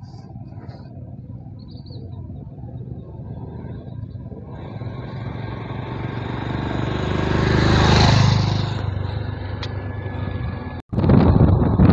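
A motorcycle approaching along the road, its engine and tyre noise growing louder until it passes close by about eight seconds in, then fading away. Just before the end the sound cuts suddenly to loud wind buffeting on the microphone.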